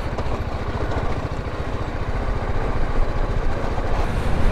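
BMW G310GS motorcycle's single-cylinder engine running at low speed while riding over a gravel road, a fast low pulsing under a wash of road and wind noise, growing slightly louder.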